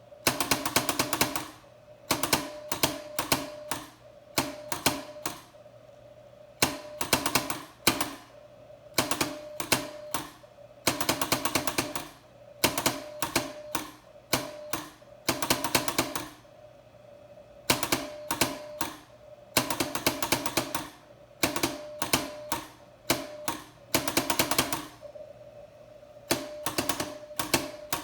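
Morse code exchanged through a vintage telephone: short and long bursts of rapid, rattling clicks, with a mid-pitched beep keyed in the same rhythm. Near the end the beeps go on for a stretch with few clicks.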